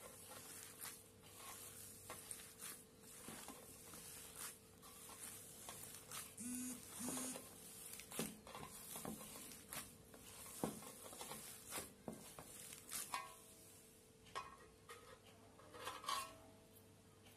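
Hands squishing and kneading grated boiled potato with spices in a steel plate. It is faint and irregular, with light scrapes and small clicks against the metal.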